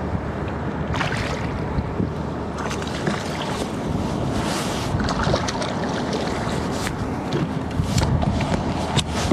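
Wind rumbling on the microphone out on open water, with a few short sharp sounds scattered through it.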